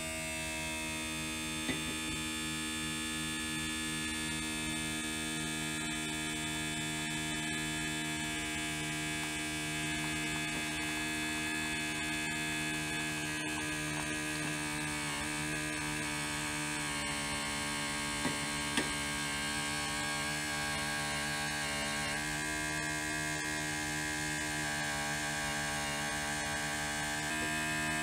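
Laboratory vacuum pump running with a steady hum, pulling vacuum through a filter flask during vacuum filtration.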